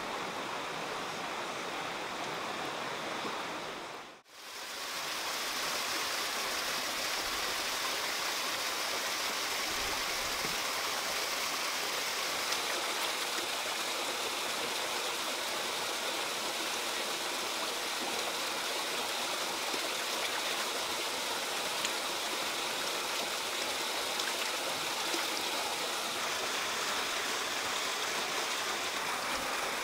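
Steady rush of a flowing forest stream. The sound briefly drops out and comes back about four seconds in.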